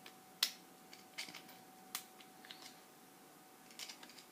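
Scattered light metallic clicks and taps from a Squire aluminium-bodied pin-tumbler padlock being handled and pried apart, the sharpest click about half a second in and a few quick ones near the end.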